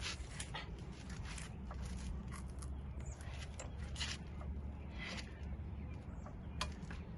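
Car jack being worked to lift the car: irregular clicks and scrapes, roughly one a second, over a steady low rumble.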